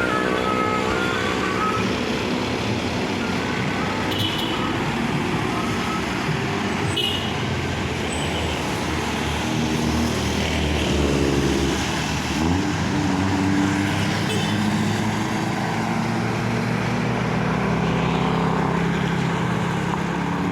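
Road traffic with the diesel engines of passing buses; one engine rises in pitch about halfway through. A multi-tone 'telolet' bus horn tune dies away in the first second or so.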